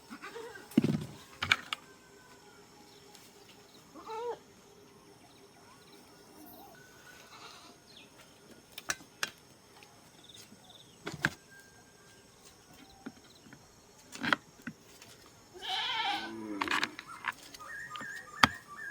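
Goats bleating now and then, with a short call a few seconds in and a longer, wavering call about three quarters of the way through. Scattered sharp clicks and knocks come in between.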